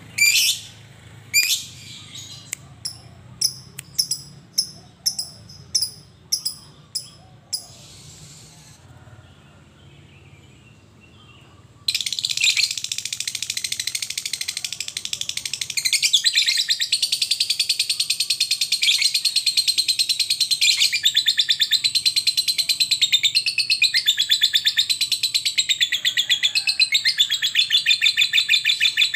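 Lovebird calling: sharp single chirps that come faster and faster, a short lull, then from about twelve seconds in a long unbroken rapid chattering trill (the 'ngekek' song), which grows louder a few seconds later.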